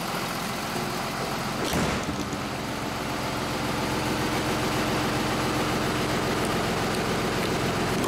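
Ford F650's 5.9-litre Cummins diesel idling steadily, with a single thump just under two seconds in as the hood is closed.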